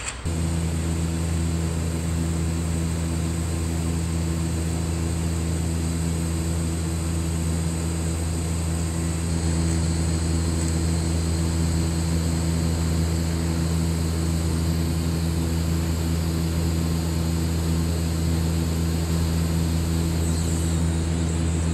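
Steady machine hum of TIG welding equipment that comes on suddenly at the start and holds an even pitch throughout. From about nine seconds in to about twenty seconds in, a faint TIG arc hiss rides on top as a bead is run across steel plates coated in a stainless-based coating, burning through the coating.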